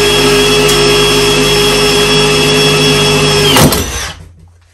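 Power drill running at a steady speed, a 6 mm Milwaukee Shockwave titanium bit boring through 10 mm thick iron. It is switched off about three and a half seconds in and winds down with a fading hum.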